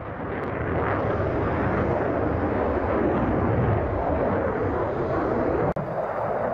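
Twin-engine fighter jet flying past, the steady roar of its jet engines building over the first second and holding, with a sudden brief dropout near the end.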